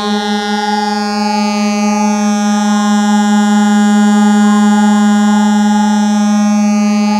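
Modular synthesizer drone holding one steady low tone at about 210 Hz with a dense stack of overtones. The upper overtones sweep slowly up and down every few seconds, and the sound is slightly wobbly because one oscillator drifts off the tuning.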